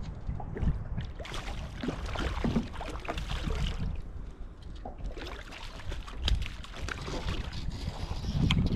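Water lapping and sloshing against a small aluminium boat, with wind rumbling on the microphone. The rushing comes in two long swells, with a few sharp knocks.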